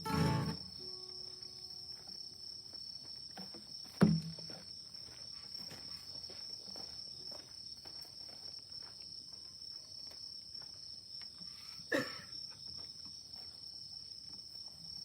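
Crickets chirring steadily outdoors, with faint crackling from a wood bonfire throughout. Two sharp knocks stand out, one about four seconds in and another near twelve seconds.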